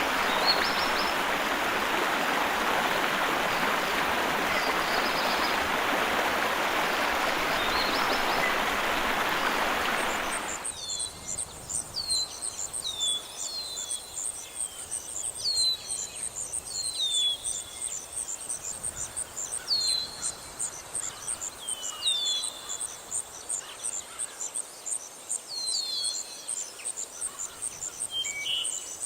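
Rushing stream water with a few bird chirps over it, cutting off abruptly about ten seconds in to crickets trilling in a fast, even pulse and birds calling with many short falling chirps.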